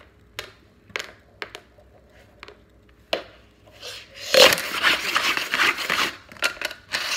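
Dice clicking singly onto a wooden floor a few times, then from about four seconds in a dense clatter of dice rattling inside a cup as it is slid and swirled over the floor to scoop and stack them.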